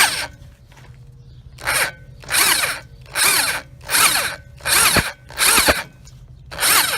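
Power drill driving a step bit into a steel frame bracket in short pulses of the trigger: after a pause of about a second and a half, six brief bursts under a second apart, the motor whirring up and winding down with each one. The pulsing keeps the bit from getting too hot while it cuts.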